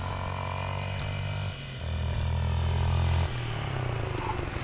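Bajaj Pulsar RS200 motorcycle engine running steadily at low revs. Its note drops for a moment about a second and a half in and shifts again after about three seconds.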